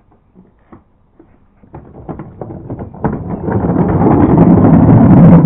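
Wheels rolling down a ramp: a rough rumble that builds for a few seconds as the rider comes near, then cuts off suddenly near the end. A few faint clicks come before it.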